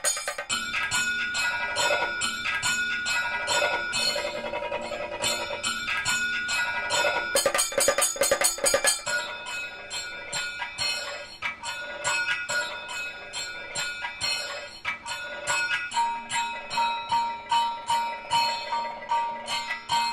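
Bells and metallic percussion ringing to a steady beat, with music.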